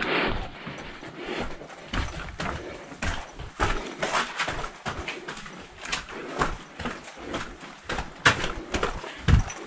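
Hurried footsteps on a rocky cave floor, crunching and scuffing at about two steps a second.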